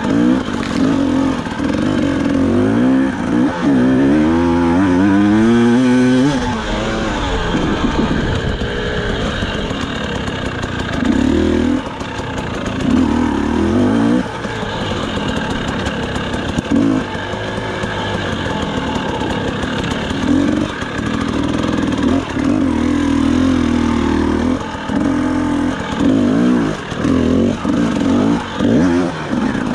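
FPV quadcopter's motors and propellers buzzing. The pitch swings up and down with the throttle, with quick swoops in the first several seconds and repeated short surges after that.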